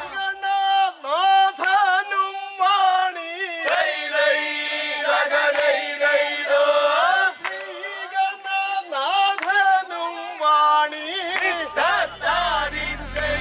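Singing: one melismatic vocal line that slides and bends between notes over a steady held drone note, with no beat.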